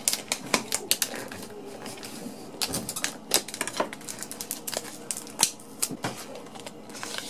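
Hard plastic blister pack being sliced and worked open with a metal debit card sharpened into a knife: a quick, irregular run of crackling clicks and snaps from the rigid plastic.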